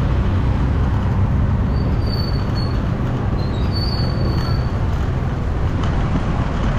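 Steady street traffic noise with a low rumble, as motorbikes and cars pass a roadside market, with a faint high-pitched squeal about two seconds in and again around four seconds in.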